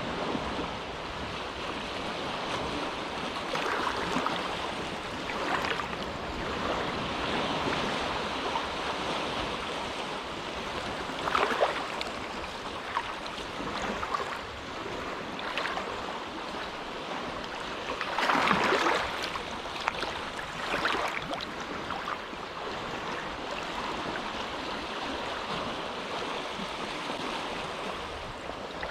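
Small, quiet waves lapping and washing at the shore of a sheltered inlet, a steady wash with a handful of brief, louder splashes as single waves break.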